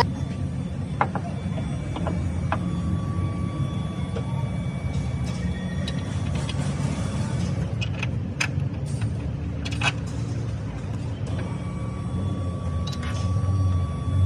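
A new engine mount and its bolts clink a few times as they are handled and set into the engine bay. A steady low mechanical rumble, like a vehicle engine running, carries on underneath.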